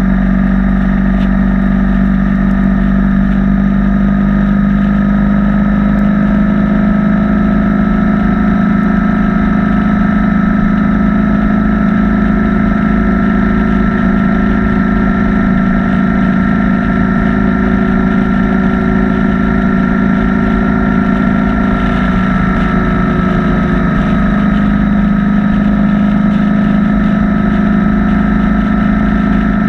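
BMW R1200 boxer-twin motorcycle engine running steadily at cruising speed, its note holding steady and dipping slightly about three quarters of the way through before picking up again.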